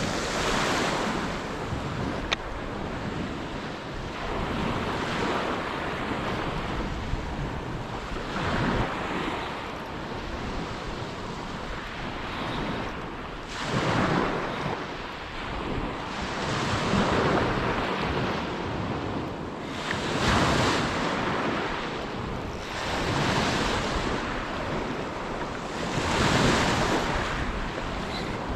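Surf breaking on a beach, a wave swelling and washing in every few seconds, with wind buffeting the microphone.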